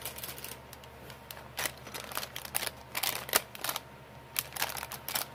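Clear plastic packaging, cellophane wrap and a plastic bag, crinkling and crackling as it is handled, in short irregular spells of crackles with brief pauses between.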